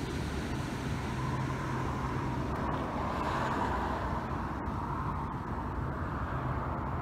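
Steady motor rumble with a rushing swell about three seconds in.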